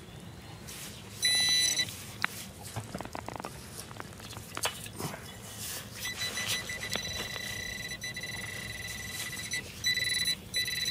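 Handheld pinpointer probe sounding a high, steady electronic tone over a metal target in a dig hole, here another penny. It gives a short loud burst about a second in, then a long continuous tone from about six seconds, breaking into short beeps near the end, with light scraping and clicking of digging in soil.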